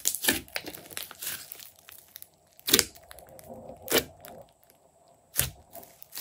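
Hands squeezing and pressing a thick slime mixed with clay and makeup: wet crackling and squishing at first, then three sharp pops about a second and a half apart as fingers push into the slime.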